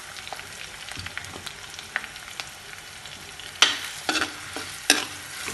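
Chopped onions sizzling in hot oil in a clay pot, with a spoon scraping and knocking against the pot as they are stirred: a steady hiss with a few sharp scrapes in the second half.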